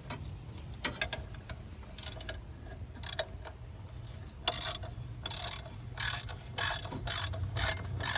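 Hand socket ratchet clicking in short bursts of strokes as bolts are worked loose on a car engine. The bursts come closer together and louder from about halfway through.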